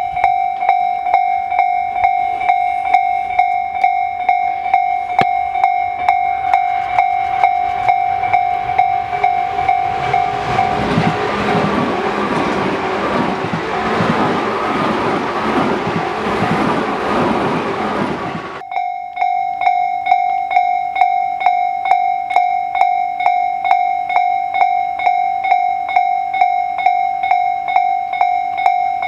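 Japanese level-crossing warning bell ringing in a steady electronic clang, about three strikes every two seconds. About ten seconds in, a Tobu Tojo Line train passes through the crossing and its wheel and running noise drowns the bell. The train noise cuts off suddenly after about eight seconds and the bell carries on alone.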